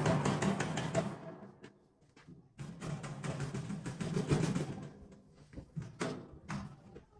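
Hand hammer tapping a sheet-metal seam closed, in quick runs of rapid, ringing blows with short pauses between them and a few single strikes near the end.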